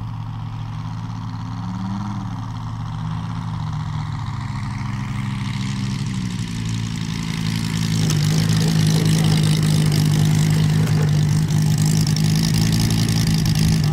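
Moki 250 four-stroke radial engine of a large RC biplane running steadily at low throttle through the landing approach and rollout, with a short rise and fall in pitch about two seconds in. It gets louder about eight seconds in, as the plane comes close along the grass, with the propeller's whir added.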